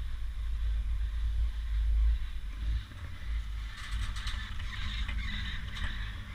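Gradio triple chairlift's chair passing a line tower: the grip clicks and rattles over the tower's sheave rollers for about two seconds, starting about four seconds in. Before that, a low rumble drops away about two seconds in.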